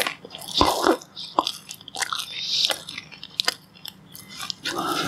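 Close-up eating of brown bread with strawberry jam: bites and chewing with crisp crunches and wet mouth clicks, coming irregularly.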